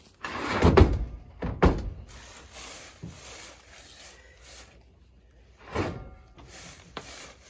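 Heavy steel-pipe wood stove body being shifted across a pickup's bed and tailgate. It makes a run of heavy metallic thuds and bumps: two loud ones in the first two seconds, another just before six seconds, and a sharp knock about a second later.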